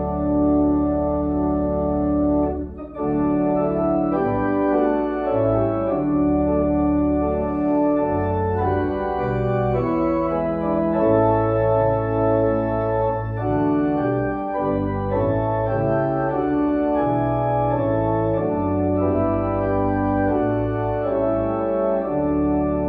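Church organ playing a hymn in held chords that change every second or so, with a brief break about three seconds in.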